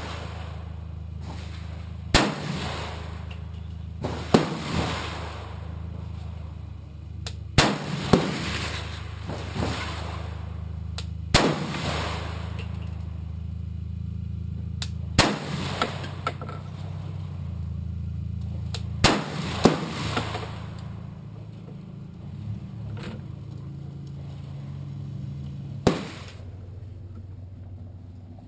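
AAC 300 Blackout AR-15 rifle firing about nine single shots, spaced a few seconds apart, some in quick pairs. Each shot is a sharp crack with a short echo, over a steady low hum.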